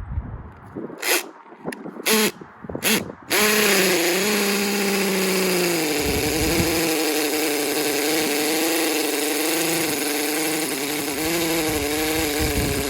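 Hammer drill with an M12 masonry bit boring into a concrete slab. Three short bursts, then a long continuous run from about three seconds in, its motor pitch dipping and recovering under load.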